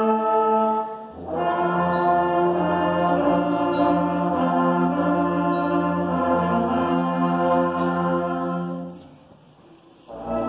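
8th grade concert band playing slow sustained chords, with the brass prominent. A held chord breaks off about a second in and the band comes straight back in. Near the end the chords die away for about a second before the band enters again.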